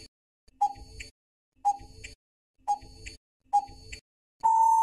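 Quiz countdown timer sound effect: clock-like ticks about once a second, four in all, then a longer steady beep starting near the end that marks time up.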